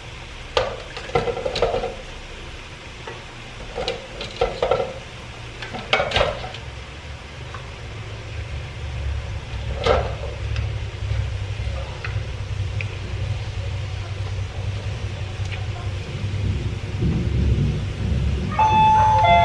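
Food frying in hot oil in a wok, a steady sizzle with a low steady hum under it. A wooden spatula knocks and scrapes against the wok and plate several times in the first ten seconds as fried pieces are lifted out.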